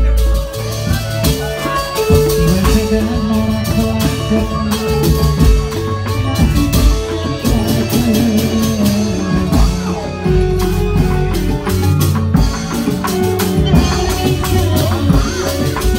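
Live reog troupe music: an electric keyboard playing a melody with sustained tones over drums and other percussion.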